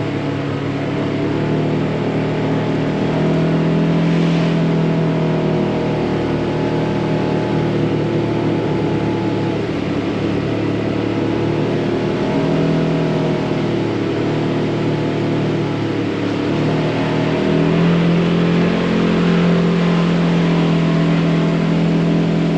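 Polaris RZR side-by-side's engine running under way on a dirt trail, its pitch rising and falling with the throttle.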